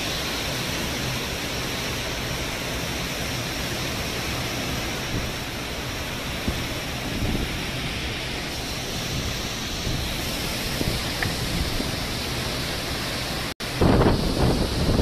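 Tropical cyclone wind and heavy rain: a steady rushing noise through most of it. After a brief dropout near the end, louder gusts of wind buffet the microphone.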